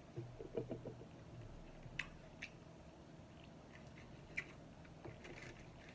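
Faint eating sounds close to the microphone: a few soft thuds and rustles of food being handled at the start, then chewing with a few short sharp mouth clicks.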